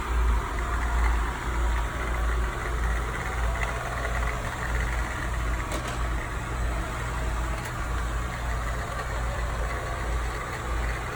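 Kobot RV351 robot vacuum running, a steady motor hum with a wavering low rumble.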